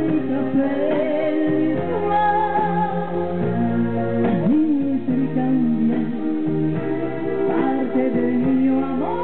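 A song playing for the dancers: a sung vocal melody over a steady bass line that changes note every second or so.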